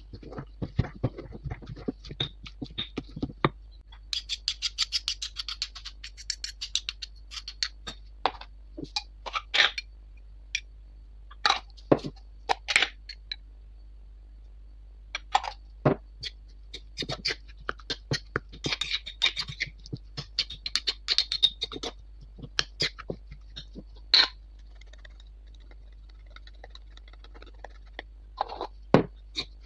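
Stone pestle pounding and grinding tomato and chilies for sambal in a stone mortar for the first few seconds. After that, a metal spoon scrapes and clinks against a glass jar and the stone bowl in scattered sharp clicks and short bursts of rapid ticking.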